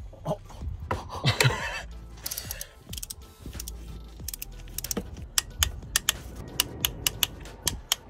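Torque wrench ratchet clicking at about four clicks a second as a new spark plug is wound in through a long extension, with a few metal tool clinks about a second in.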